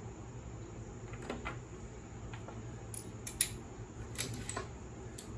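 Scattered light metallic clicks and clinks from a socket wrench being worked on the 1/2-inch bolts of a mower deck's belt guard, over a low steady hum.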